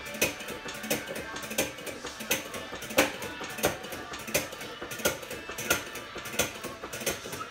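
Foot pump of a hydraulic table cart being worked, one sharp mechanical clack per stroke about every 0.7 seconds, as the table raises a push mower.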